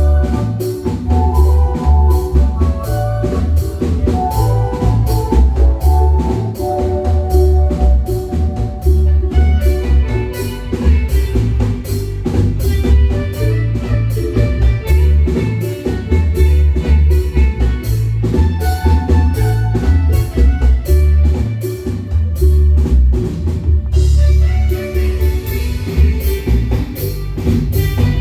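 Marimba band playing live: rapid mallet-struck marimba notes over a heavy bass line and a drum kit.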